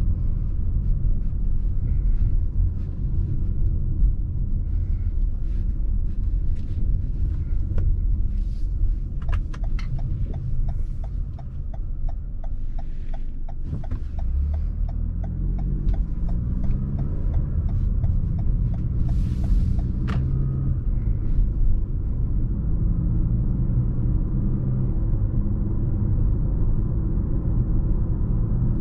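Cabin sound of a 2021 Toyota RAV4's 2.5-litre four-cylinder engine and tyres, a steady low rumble. From about a third of the way in until about two-thirds in, the turn-signal indicator ticks evenly about three times a second. After the turn the engine rises in pitch as the SUV accelerates.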